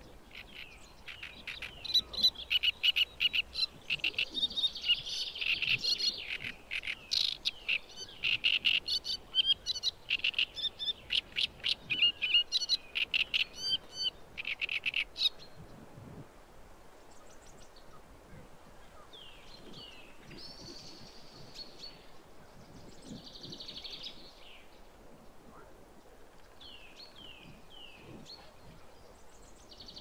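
Great reed warbler singing: a rapid, chattering song of many quick notes for about fourteen seconds, then a few shorter, quieter calls.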